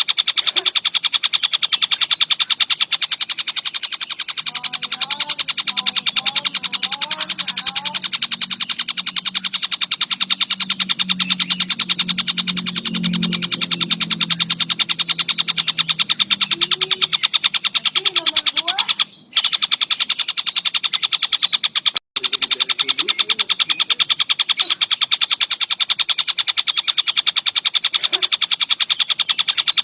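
A tengkek buto (collared kingfisher) calling non-stop in a fast, steady chatter of rapid repeated notes. The call cuts out twice for a moment a little after the middle. A low hum runs underneath during the first half.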